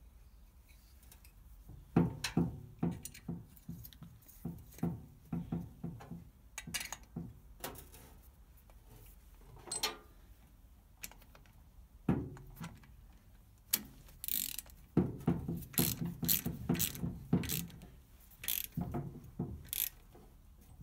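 Hand ratchet clicking in short runs, starting about two seconds in, as a socket is turned on the nut holding the rocker cover onto a Citroën 2CV engine's cylinder head.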